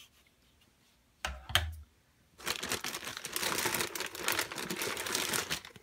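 A short knock about a second in, then a clear plastic bag crinkling and rustling for about three seconds as a hand rummages inside it.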